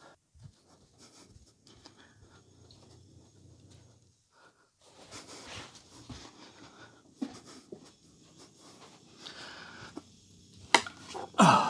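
Handling noises from a large wooden subwoofer cabinet being carried: scraping and rubbing, with scattered light knocks, then two loud knocks close together near the end.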